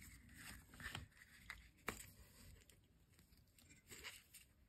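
Faint rustling of felt being handled, with a few soft ticks as conductive thread is drawn through it by hand, most of them about one to two seconds in and one more near the end.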